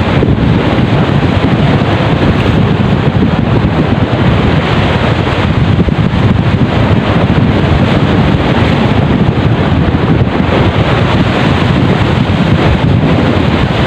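Strong wind buffeting the microphone as a steady low rumble, with waves washing and breaking against seawall rocks.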